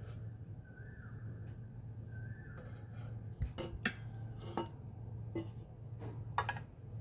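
Oil skimmer clinking and tapping against the soup pot while skimming chicken fat off the soup, a scatter of light clicks, most in the second half, over a steady low hum.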